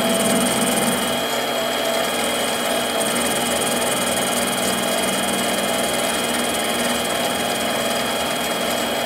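Mini lathe running with a steady whine as the tool takes a facing cut across the end of a stainless steel bar, lubricated with cutting fluid. The cut goes smoothly, without chatter.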